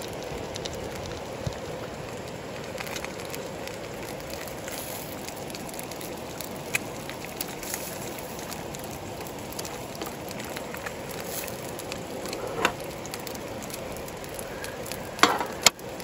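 Sausage and egg sizzling steadily in a deep campfire frying pan, with small crackles. A few sharp clicks, two close together near the end.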